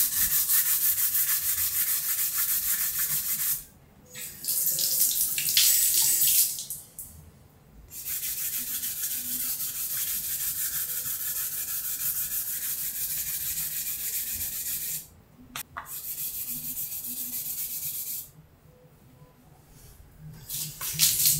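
Water running from a tap in steady stretches of a few seconds, with short pauses between them, while a filler-coated 3D-printed part is wet-sanded with 600-grit paper under the stream.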